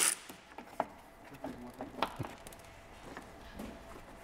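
A power tool cuts off at the very start, then scattered light clicks and knocks as the front plastic undertray of a Porsche 986 Boxster S is unfastened and handled.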